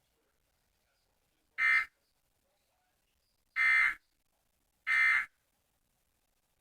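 Three short bursts of Emergency Alert System end-of-message data tones, the digital signal that closes an alert broadcast. The bursts come about a second and a half in, then twice more, the last two closer together.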